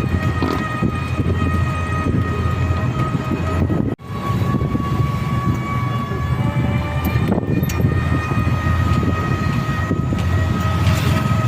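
A vehicle on the move: steady low rumble with a constant high-pitched whine over it, cut off for an instant about four seconds in.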